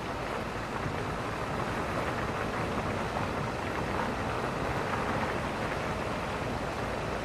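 Steady rushing noise of a vehicle driving across firm beach sand, with a low rumble underneath and no change in pace.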